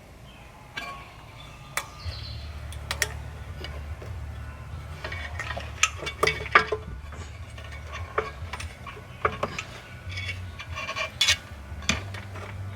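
Scattered metallic clicks and clinks of hand tools and parts being handled, over a low steady hum.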